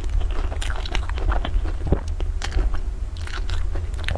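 Close-miked eating of crumb-topped, cream-filled puffs: irregular crunching and crackling of the crisp crust as they are bitten and chewed.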